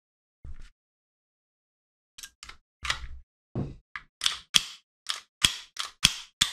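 Sharp metallic clicks and clacks of a Hi-Capa 2011 airsoft pistol being handled as it is put back together: a faint knock, then about a dozen quick clacks of parts snapping into place and being worked, coming two to three a second near the end.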